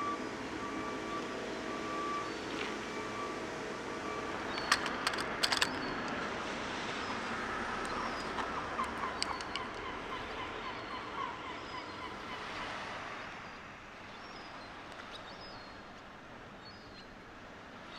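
Outdoor ambience with a vehicle's reversing beeper sounding a repeated short beep over an idling engine for the first few seconds. A few sharp clicks follow, then a steady wash of background noise with faint bird chirps.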